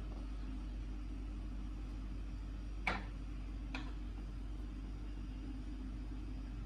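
A steady low hum of room noise, with two light clicks about three and four seconds in, from kitchen utensils knocked against a glass serving dish.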